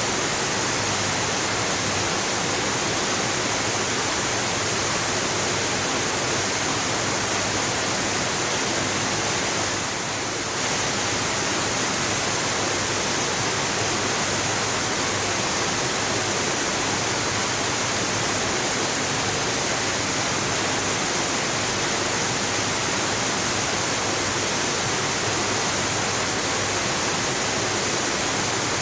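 Waterfall: a steady, even rush of falling water, dipping slightly for about half a second around ten seconds in.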